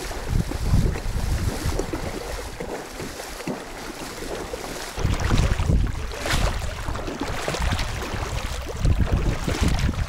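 Wind buffeting the microphone in gusts over an even rush of water. The buffeting eases for a couple of seconds, then comes back strongly about halfway through.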